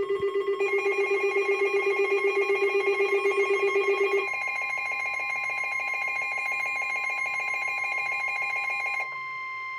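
Emergency weather alert tones. A loud, rapidly pulsing alarm beep sounds for about the first four seconds over several steady alert tones. Most of the steady tones stop about nine seconds in, while one steady tone carries on.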